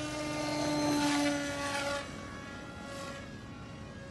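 Radio-controlled model plane's motor and propeller whining, rising in pitch as it speeds up at the start, then sagging slightly and fading after about two seconds.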